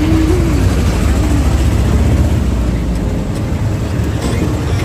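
A steady low rumble of a moving vehicle.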